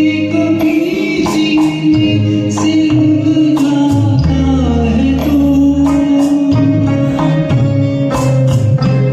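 Music: a Hindi film song sung over a backing track, with held melodic notes, a moving bass line and a regular percussion beat.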